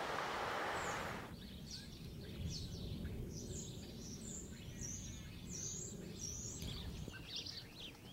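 Surf noise that cuts off suddenly about a second in, giving way to small birds chirping in short high calls over a low steady rumble.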